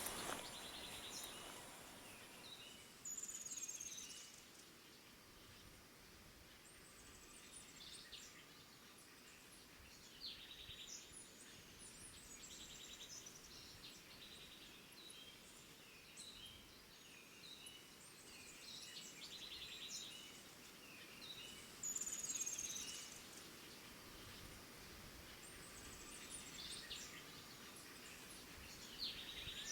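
Faint outdoor ambience with birds calling now and then: short high chirps and sweeping whistles, louder about three seconds in and again a little past twenty seconds.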